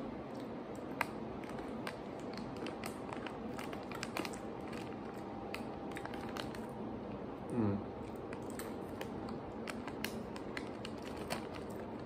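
Crunchy candied sweet potato sticks (imo kenpi) being chewed, with the plastic snack bag crinkling in the hand: scattered sharp clicks and crackles over a low room hiss. A short, falling hum of the voice comes a little past halfway.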